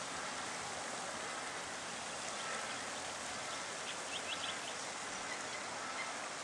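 Steady, even hiss of outdoor background noise, with a few short, high chirps about four seconds in.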